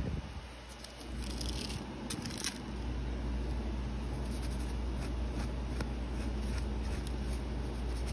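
Steady low hum, with faint crinkling and light brushing ticks between about one and two and a half seconds in, from a fan brush working thin gold leaf and its backing paper.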